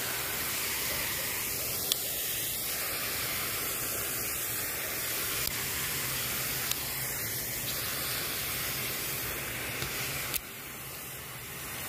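Steady rushing hiss of a pond fountain's water spray, with a few faint clicks. The level drops suddenly about ten seconds in, then slowly builds back.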